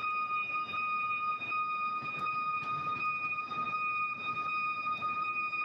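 Stick welding on stainless steel: a steady high whine over a rough, uneven crackle with scattered clicks.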